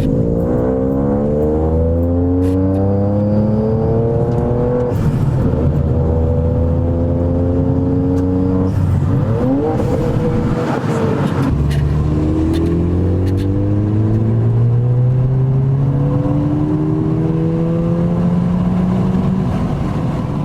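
Ford Fiesta EcoBoost engine accelerating hard through the gears, with its newly fitted induction hoses adding intake noise. The revs climb steadily and drop at gear changes about five and eleven seconds in, with a brief lift-off just before the second change.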